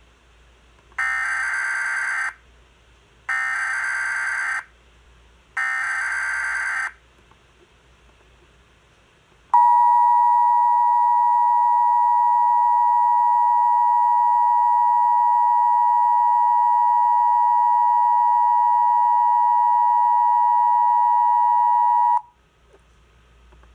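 Emergency Alert System (EAS) alert tones: three short bursts of SAME header data, each about a second long with short gaps between them, then the steady two-tone attention signal held for about twelve seconds before it cuts off suddenly.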